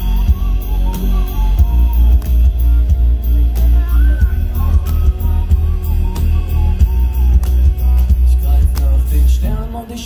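Live band music with a heavy, pulsing bass and a sung melody over it. The music drops back briefly near the end.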